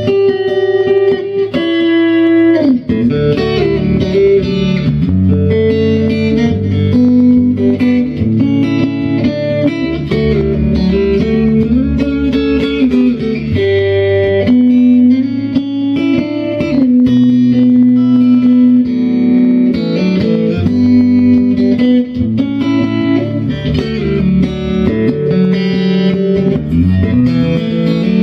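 Electric guitar playing a melodic instrumental piece, with a bass line underneath.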